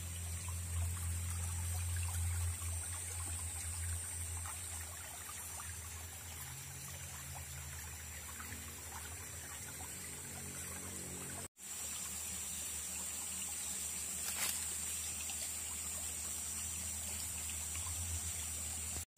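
Small forest stream trickling, with a steady high-pitched drone above it.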